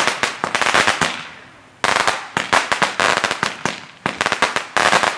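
Fireworks going off in rapid strings of sharp bangs and crackles, in three volleys about two seconds apart, each dying away before the next begins.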